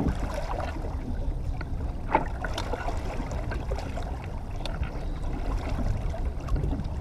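A boat's motor running steadily at trolling speed, with water noise, and a single sharp knock about two seconds in.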